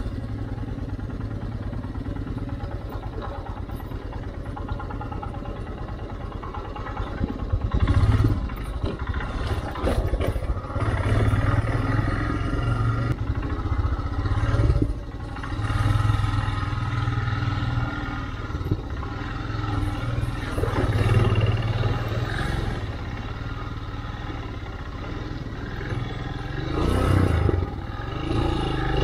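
Motorcycle engine running steadily at low revs. From about seven seconds in it surges and eases again and again under the throttle as the bike rides over a rough off-road track, with rattles and knocks from the bike over the rocky ground.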